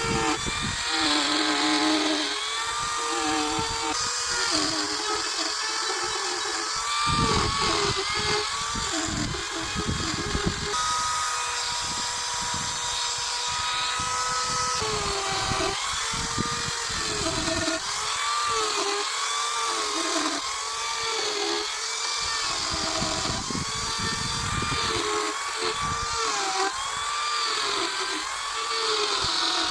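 Carving chainsaw running as it cuts into wood, its pitch rising and falling over and over as the load comes on and eases off.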